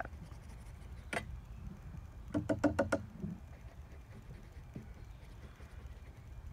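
A single sharp click, then a quick run of four or five light taps about two and a half seconds in, over a low steady rumble.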